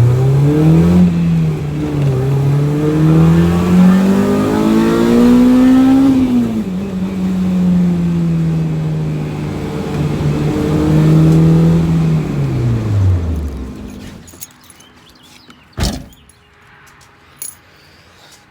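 Honda K20A2 four-cylinder engine in a swapped Civic running under throttle: its note climbs twice, holds steady for several seconds, then falls and dies away about three-quarters of the way through. One sharp knock follows a couple of seconds later.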